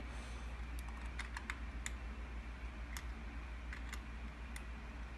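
Scattered, irregular light clicks of a hex Allen key working the hold-down bolts on a Wiwa 6:1 water pump's upper (air) end, each bolt turned about half a turn to draw it down evenly, over a low steady hum.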